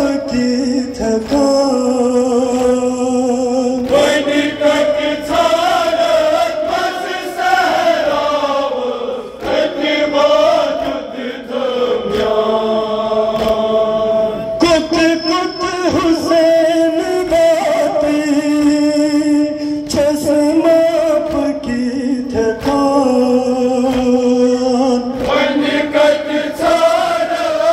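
A group of men chanting a Kashmiri noha, a mourning lament, with a lead reciter singing into a microphone.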